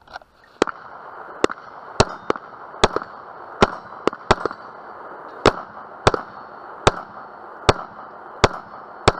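A string of about fourteen gunshots, irregularly spaced from a quarter second to about a second apart, over a steady hiss.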